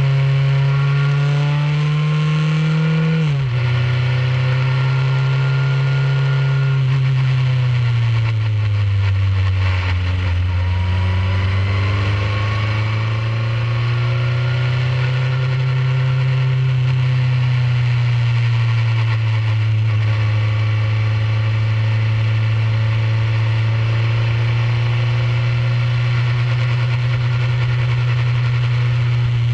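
A Formula 2000 single-seater's engine heard from the cockpit, running at steady revs. Its pitch drops sharply about three seconds in, then sags for a few seconds around ten seconds in before climbing back, as the car lifts and gets back on the throttle. A steady rush of air and road noise lies under it.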